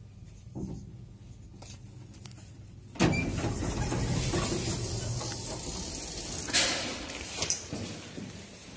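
Old Zremb passenger lift's sliding doors opening, a sudden loud rumbling clatter about three seconds in that runs on for several seconds and fades, with two sharp knocks near the end. A low hum from the lift comes before it.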